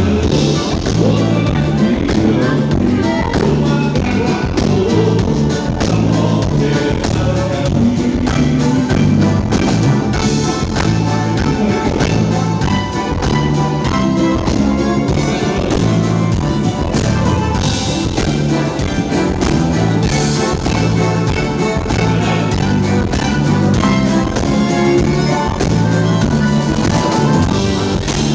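Live band music with a steady beat, bass and guitar, and some singing.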